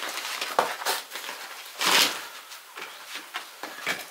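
Stones and rubble knocking and scraping as they are dug out by hand from an earth floor, in irregular clatters with a louder crunch about two seconds in.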